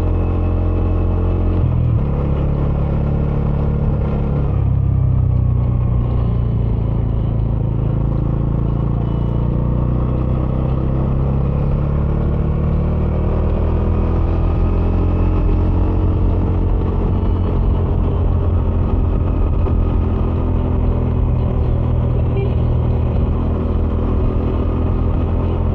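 Bajaj Dominar 400's single-cylinder engine through its stock dual-outlet exhaust, heard from the rider's helmet while riding. The engine note changes abruptly about two seconds in, then rises and falls gently with the throttle.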